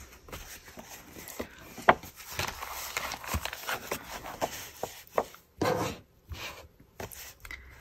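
Paper and card being handled: a stiff lined verse card rubbed and shifted against the journal's paper pages, with scattered light taps and clicks. A sharper tick comes about two seconds in, and a longer rustling slide near six seconds.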